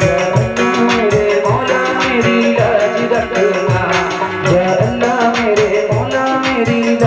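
Live qawwali-style devotional music: harmoniums playing the melody over a steady hand-drum beat, with a wavering melodic line above.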